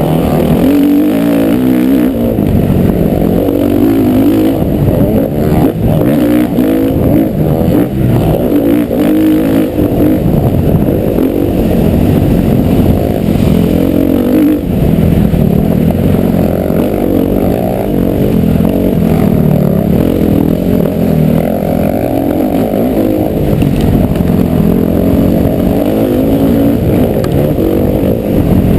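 Motocross bike engine being ridden hard, its note rising and falling over and over as the throttle is opened and closed. The sound is loud and muffled, with most of it low down.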